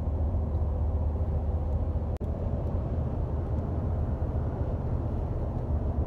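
Steady low road rumble inside a moving car's cabin at highway speed. About two seconds in, the sound drops out for an instant.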